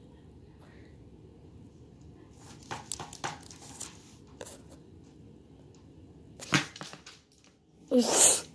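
Plastic window blind slats rustling and clattering as they are handled and pushed aside, in a few short bursts, the loudest near the end.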